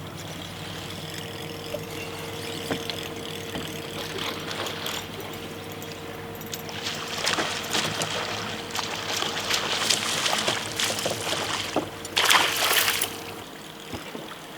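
Boat engine idling steadily while water splashes, the splashing growing from about halfway and loudest about twelve seconds in; the engine stops near the end.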